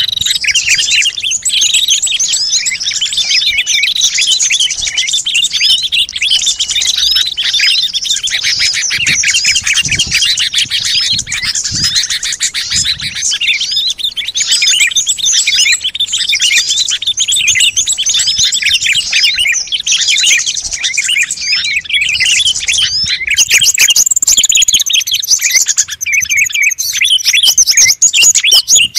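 A dense, overlapping chorus of many small songbirds chirping and twittering at once: a bird-lure recording made to call small birds. Near the end, higher sweeping whistles join in.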